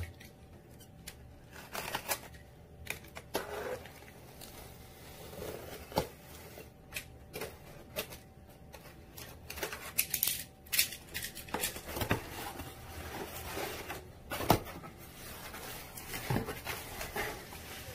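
A cardboard box being opened by hand: a utility knife slitting packing tape, cardboard flaps scraping and knocking, and bubble wrap rustling as it is handled. Irregular clicks and scrapes, with one sharper knock about two thirds of the way in.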